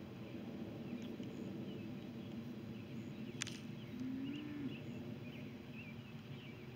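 Small birds chirping faintly over a steady low background rumble, with a sharp click about three and a half seconds in and a brief low tone just after it.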